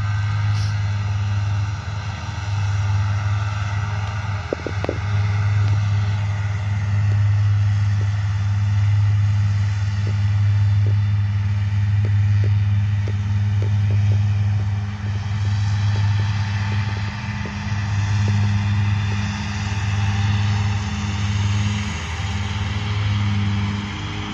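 Krone Big M 450 self-propelled mower's diesel engine running steadily under load as it mows grass, a constant low drone with a fainter whine above it.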